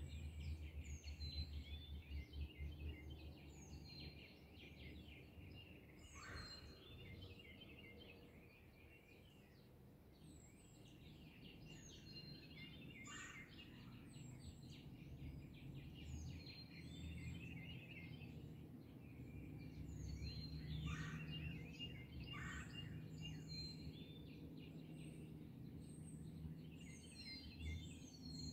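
A dawn chorus of small birds chirping and trilling continuously, with a few louder, lower falling calls now and then. A low, steady rumble runs underneath.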